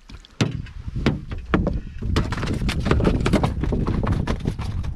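Irregular knocks and clatter of gear against an aluminum boat, starting about half a second in, over a steady low rumble.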